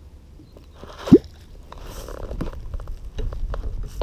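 Catfish clonk plunged into the water, giving one loud, short, deep 'bloop' that rises in pitch about a second in: the call used to draw wels catfish up. A low rumble and small knocks follow.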